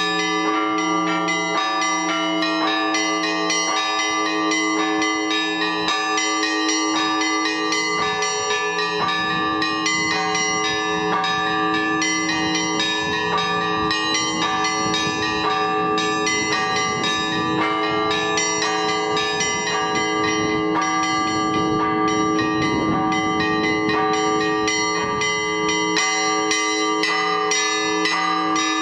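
Russian Orthodox church bells rung together in a full peal: rapid, overlapping strikes of small, high bells over the repeated ringing of deeper bells, all sounding continuously, as rung to call the faithful to the All-Night Vigil.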